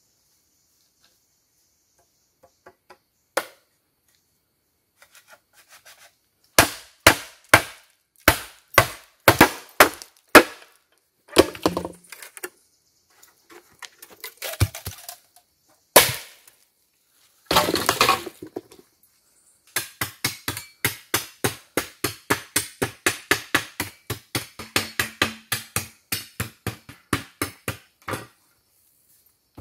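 Bamboo being chopped and split with a hand tool: a run of about eight loud, sharp chops roughly two a second, a couple of longer crunching splits and one hard single strike, then a long run of lighter, quicker knocks about three a second.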